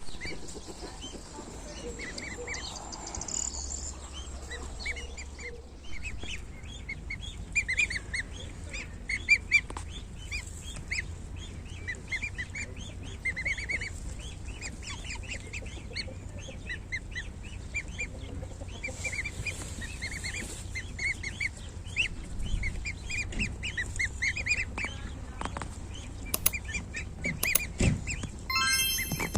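A group of week-old goslings peeping continuously, many short high calls overlapping. Near the end there is one louder, fuller bird call.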